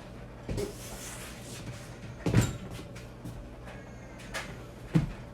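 A few separate knocks and clunks from parts of a lighting stand being handled and fitted together, the loudest about two and a half seconds in, over a low steady hum.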